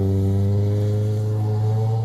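Kawasaki naked motorcycle's engine pulling away up the road, a steady multi-tone exhaust note that rises slowly in pitch and fades a little as the bike moves off.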